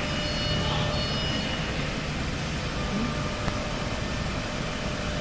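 Steady workshop machinery noise: a continuous hum and hiss, with a faint high whine in the first second or two and one small click about three and a half seconds in.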